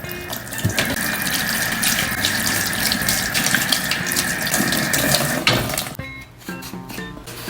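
Kitchen tap running into a sink with a steady rush for about five seconds, then shut off.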